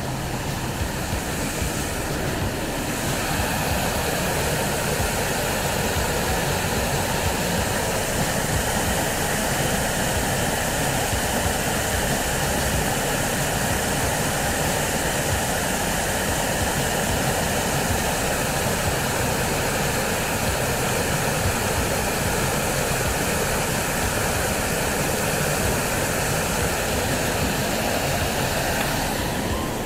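Waterfall and creek rushing in a steady roar of falling water, growing a little louder a couple of seconds in.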